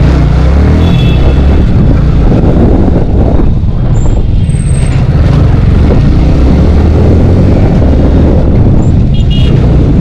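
Yamaha sport motorcycle running at low speed in dense street traffic, its engine and wind rumble heavy on the camera mic. Short horn beeps from the surrounding traffic come about a second in and again near the end.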